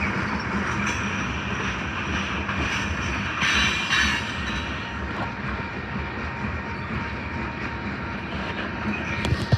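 A train passing close by, its wheels running steadily over the rails with some clickety-clack, and a brief louder rattle about three and a half seconds in.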